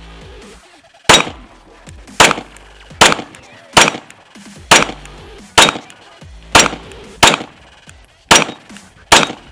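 A CZ P-10 C pistol firing ten shots at a steady pace, about one a second. It cycles every round without a malfunction.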